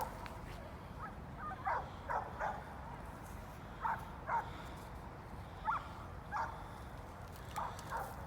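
Dogs left behind barking and yipping, about a dozen short, faint barks at irregular intervals. They are agitated at being left.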